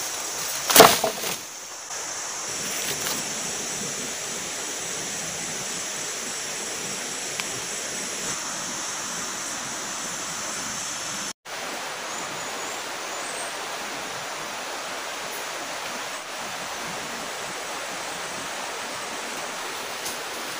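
Forest ambience: a steady rushing hiss like running water, with a high steady drone that cuts off suddenly about halfway through. A loud sharp knock sounds about a second in.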